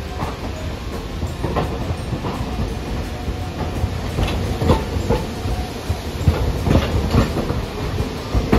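Hiroden streetcar No. 813, a single-car tram, rolling slowly over the station's points and crossings. Its wheels clack irregularly over the rail gaps above the low rumble of the car, with the knocks coming more often in the second half.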